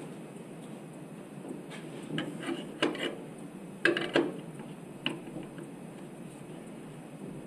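Tools and engine parts being handled during the repair: a scatter of light clicks and clacks, busiest between about two and four seconds in, over a steady low background hum.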